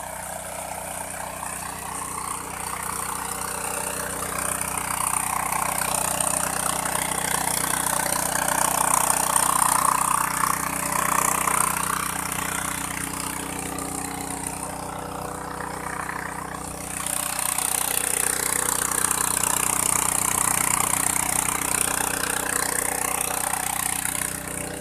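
Engine-driven water pump running steadily while it drains a dammed stream pool, with water gushing and splashing from its discharge hose. The rush of water swells louder around the middle and again for the last several seconds.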